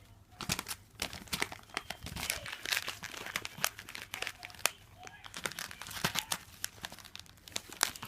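Paper crinkling and rustling as a cat plays with it, a dense run of irregular sharp crackles.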